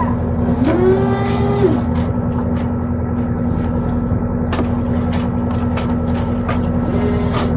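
Boat engine running steadily with a constant drone. A brief held higher tone comes in about half a second in and again near the end.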